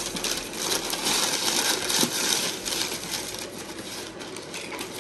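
Packaging rustling and crinkling in quick crackles as a new pair of sneakers is unpacked from its box and wrapping.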